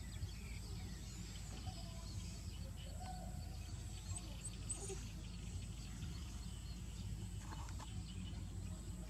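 Outdoor background noise: a steady low rumble, with a few faint, short bird chirps about four to five seconds in.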